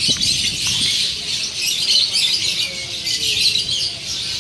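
Many caged small songbirds chirping and twittering at once, a dense overlapping chatter.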